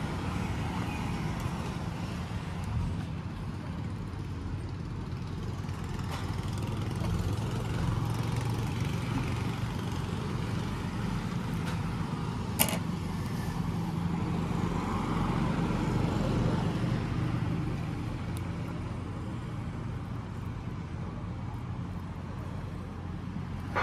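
Steady low mechanical rumble with a constant hum, like an engine running nearby, and a single sharp click about halfway through as scissors snip the wire of a neon flex light.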